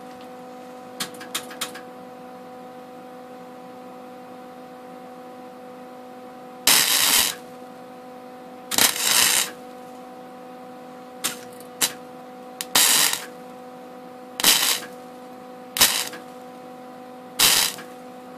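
MIG welder striking a series of short tack welds to join a steel wire loop to a nail, heard as about eight brief crackling bursts of arc, the first two the longest, over a steady electrical hum. A few light clicks come about a second in.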